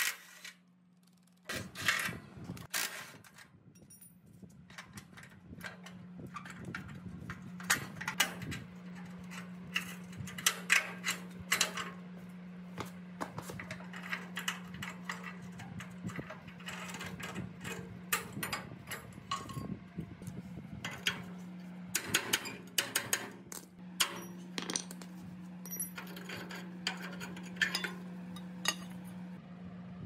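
Metal parts and hand tools clinking, tapping and knocking at irregular intervals during work on an old machine, over a steady low hum that starts about a second and a half in.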